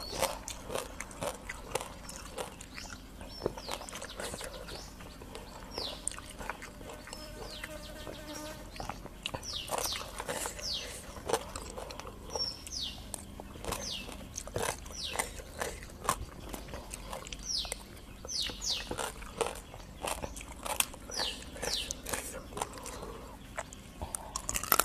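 Close-miked eating sounds: clicks and crackles as a raw rice-field crab's shell is pulled apart and chewed, with a spoon tapping the tray. Short high chirps falling in pitch repeat in the background.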